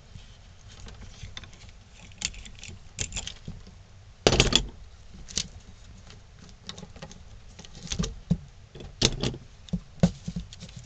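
Metal bar clamps clicking and rattling as their screw handles are turned and the clamps are taken off and set on glued wooden blocks, with scattered knocks of metal on wood; the loudest knock comes about four seconds in.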